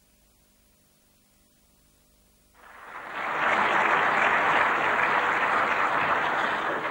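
Audience applauding, starting abruptly about two and a half seconds in after near silence, then holding steady and easing off near the end.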